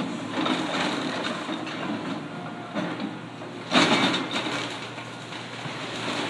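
Excavator tearing into a wooden house, with cracking and crunching of timber and siding over the machine's running engine. A loud crash comes about four seconds in.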